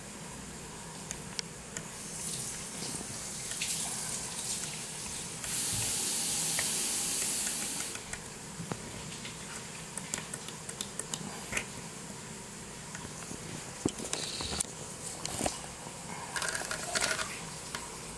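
Light metallic clicks and taps as a sheet-steel sink mounting clip and its screw are handled and fitted against the rim of a composite sink. Near the middle a loud steady hiss sounds for about two and a half seconds, starting and stopping abruptly.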